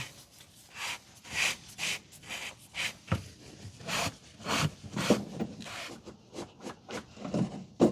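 Plastic fuel-water separator housing cap on a Navistar N13 being tightened down with a large filter wrench: a series of short scraping, rubbing strokes at irregular intervals as the cap is turned onto its threads.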